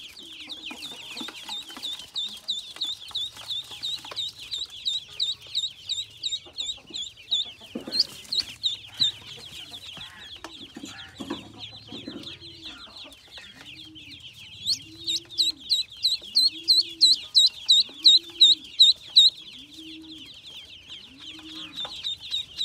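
Many ducklings peeping in a dense chorus of high, rapidly repeated peeps, rising to a run of loud, evenly spaced peeps about two-thirds of the way in. A deeper call repeats about once a second beneath the peeps over the last ten seconds.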